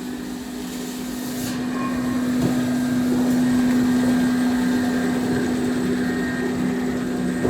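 Portable standing seam roof panel roll forming machine running, giving a steady motor hum with a few faint clicks.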